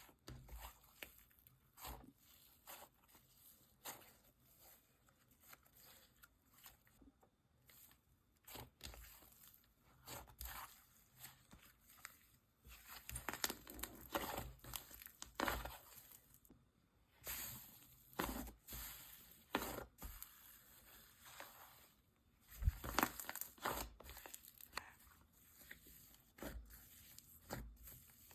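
Slime being handled, stretched and squished by hand: faint irregular sticky tearing, crackling and clicking sounds, busier in the middle and again near the end.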